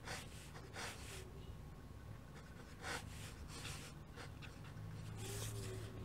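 Fountain pen nib scratching across paper in a handful of short strokes while a signature is written, over a faint low hum.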